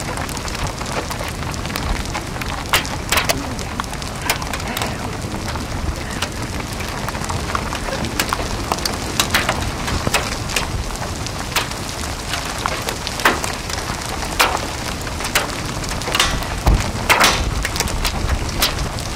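Rain and scattered hailstones pelting the camera, sharp irregular taps over a steady rushing noise.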